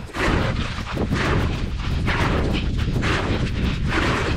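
Wind buffeting the microphone in a steady low rumble, with several short, louder rushing noises over it at uneven intervals.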